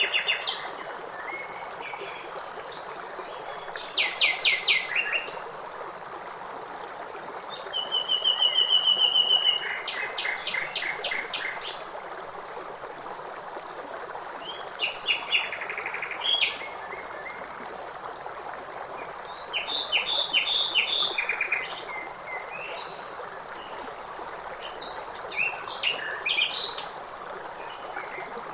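Several wild birds calling and singing in turn: quick runs of repeated notes, a steady high trill about eight seconds in, and clusters of short chirps, over a steady background hiss like running water.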